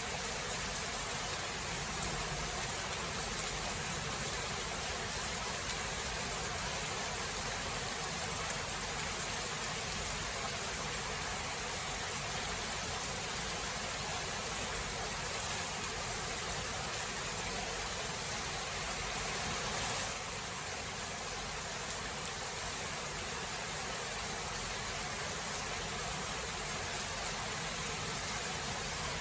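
Steady rain falling, an even hiss with a few faint ticks of drops; it becomes slightly quieter about two-thirds of the way through.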